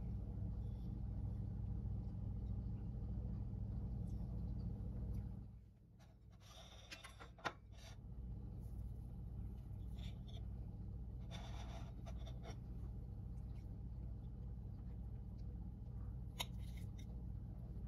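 A table knife cutting a slice of cake on a china plate: a few short scrapes against the plate and one light tap, over a steady low room hum.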